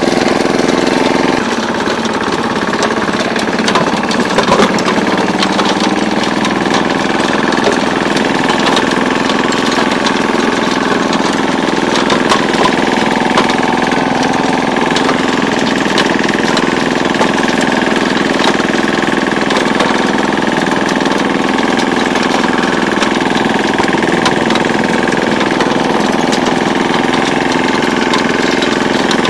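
Ferrari 72S tracked two-wheel tractor's Lombardini 510 single-cylinder diesel running steadily under load with a rapid knock, driving the rotary tiller through the soil.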